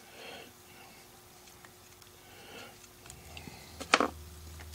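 Faint handling sounds at a workbench, with a low rumble of movement from about three seconds in and one sharp knock about four seconds in.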